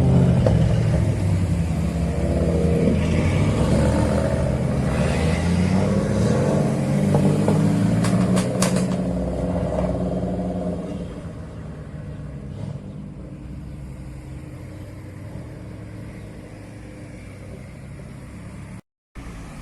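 Tuned car's engine and exhaust running loud with some revving, with a few sharp cracks about eight seconds in, then fading away to a quieter background after about eleven seconds.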